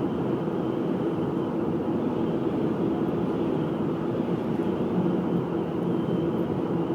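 Steady road and wind noise of a 2008 Honda Accord at speed, with a faint steady whistle running through it. The whistle comes from the hood and starts at about 45 mph.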